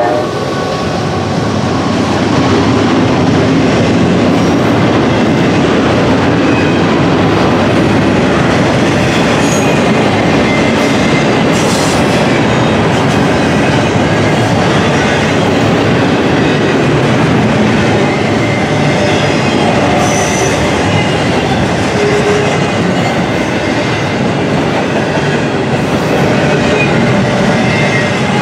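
Double-stack intermodal container cars rolling past at track speed: steady, loud noise of steel wheels running on the rails, with a few brief thin tones from the wheels now and then.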